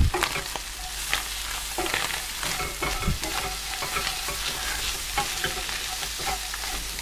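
Browned beef mince with just-added diced onion, bell peppers and chili sizzling in a hot frying pan, a steady sizzle, while a wooden spoon stirs and scrapes through it with scattered scrapes and knocks against the pan.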